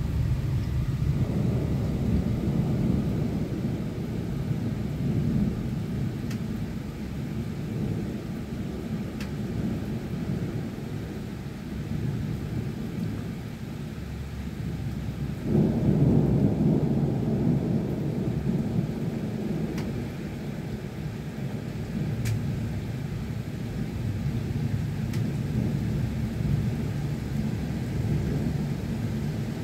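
Thunder rumbling over steady rain in a night thunderstorm: one long roll swelling about a second in, then a second, louder roll breaking in suddenly about halfway through and slowly dying away. A few faint ticks come through now and then.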